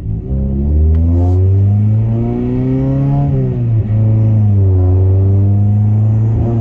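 Honda Accord's swapped-in F20B four-cylinder pulling under acceleration, heard from inside the cabin. The engine note climbs for about three seconds, drops away at an upshift, then holds and climbs again. The engine is running with a miss, which the owner puts down to a spark plug or water in a cylinder.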